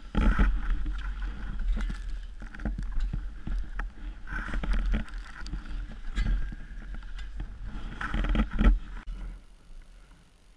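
Long-handled snow shovel scraping and pushing packed snow off an outhouse roof: repeated rough scrapes and knocks over a heavy low rumble, dying down about nine seconds in.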